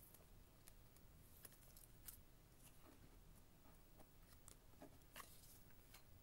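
Near silence with a few faint, scattered clicks and rustles of trading cards being handled and sorted by hand.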